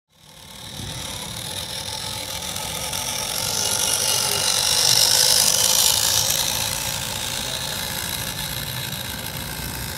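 A 1:18-scale RC truck driving over gravel, its motor and drivetrain running steadily. It fades in at the start, grows louder as it comes close about five seconds in, then eases off as it moves away.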